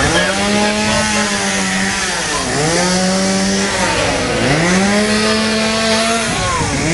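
A small engine running loudly at a steady pitch, which drops sharply and climbs back again about every two seconds, as if briefly loaded.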